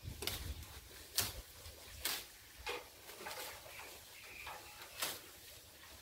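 A handful of sharp, brief rustles and snaps at irregular intervals, with a low wind-like rumble on the microphone and a few short, faint high chirps.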